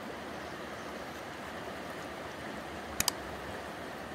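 Steady rushing of a fast Pyrenean mountain river, with a quick sharp double click about three seconds in.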